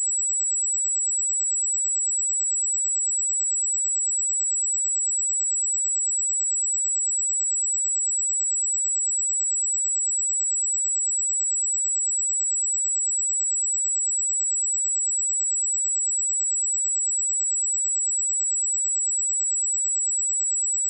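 A steady, high-pitched pure sine-wave test tone at 7803 Hz, held at one pitch and level without a break.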